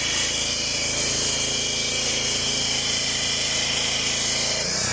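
Gas pressure washer with a Honda GC190 single-cylinder engine running steadily under load, with a steady high hiss of the water spray.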